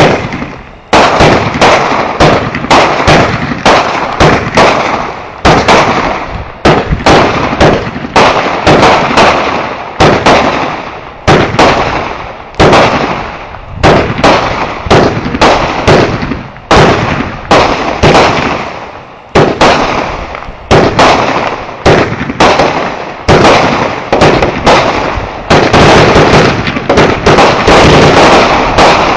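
Multi-shot consumer firework cake firing a long barrage: a loud bang every half second to a second, each with an echoing tail, building to a dense, continuous crackle of bursts near the end.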